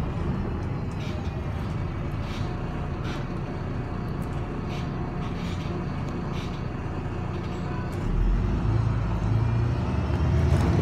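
Cabin noise of a MAN Lion's City city bus under way: steady rumble of the diesel engine and road, with a few short rattles from the interior fittings. About eight seconds in, the engine gets louder as the bus pulls harder.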